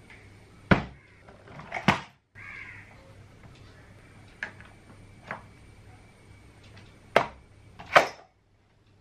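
Plastic clacks and knocks from a homemade PVC cantilever toolbox being handled, its trays and linkage arms swung open and shut and the box set down on the table. There are half a dozen separate knocks, the loudest a little under a second in, near two seconds and toward the end, with quieter rattles between.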